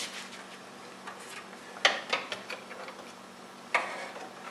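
Small clicks and taps of a ribbon cable and its plastic connector being handled and fitted inside a sheet-metal test fixture, with a sharper click about two seconds in and another near the end.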